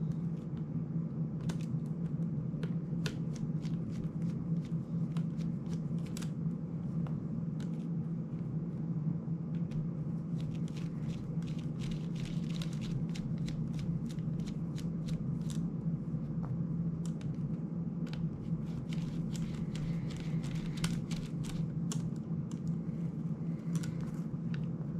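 Small irregular clicks and rustles from a precision screwdriver backing out screws and hands handling a ducted FPV drone's plastic frame, over a steady low hum.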